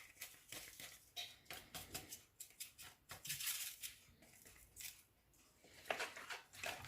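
A vanilla sugar sachet being opened and emptied into the bowl: faint, quick, crisp rustles and clicks of paper, with a few sharper knocks near the end.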